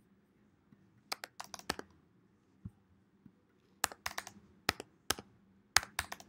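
Computer keyboard keys tapped in short clusters with pauses between, as values are typed into settings fields.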